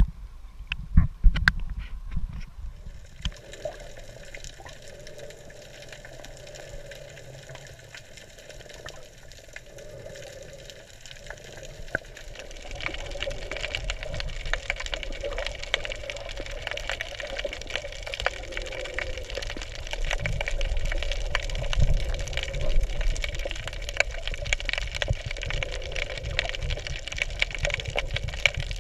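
Water splashing against an action camera's waterproof housing at the surface, with a few sharp clicks. About three seconds in the camera goes under and the sound turns to a muffled underwater hiss with a steady hum, growing louder with dense crackling in the second half.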